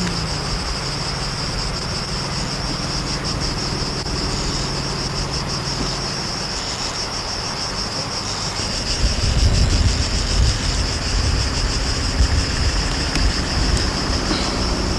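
Loud, steady chorus of chirring insects in summer, pulsing rapidly. From about nine seconds in, low rumbling gusts of wind on the microphone join it.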